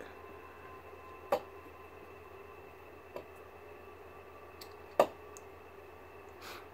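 A few sharp, isolated clicks on a quiet background, the loudest about five seconds in, with a faint steady room hum underneath.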